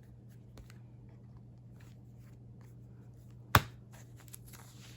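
Handling of a ring binder of paper clippings: faint light rustles and ticks, with one sharp, loud snap about three and a half seconds in, over a steady low hum.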